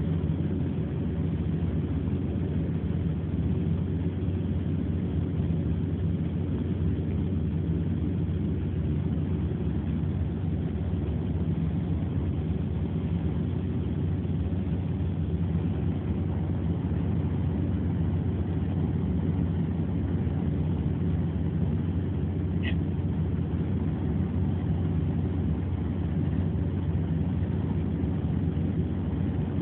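Steady car engine and road rumble heard inside the cabin, a low drone with a few steady hum tones. One brief high-pitched chirp about three-quarters of the way through.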